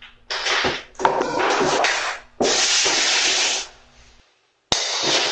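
Four loud bursts of rough rustling, rubbing noise, the longest lasting over a second, with a faint steady hum beneath the first three.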